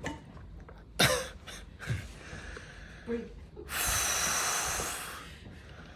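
A patient's breathing just after a chiropractic spine adjustment: a sharp intake of breath about a second in, a few small sniffs and murmurs, then one long exhale about four seconds in.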